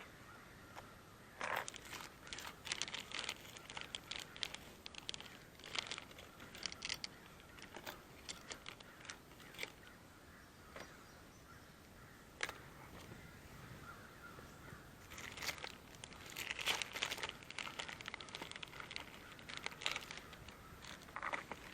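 Crows cawing in alarm, faint, in scattered bursts that thicken in the last third, mixed with light crackling and rustling close by.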